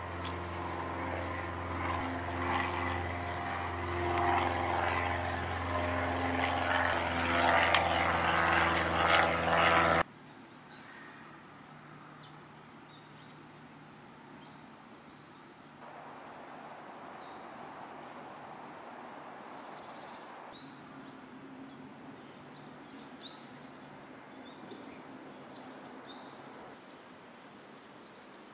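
An engine running steadily and growing louder, cut off abruptly about ten seconds in. After that, quiet outdoor ambience with scattered short, high bird chirps.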